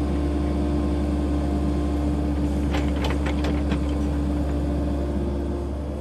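Tracked excavator's diesel engine running steadily while its bucket digs and lifts soil, with a cluster of clanks and rattles about halfway through.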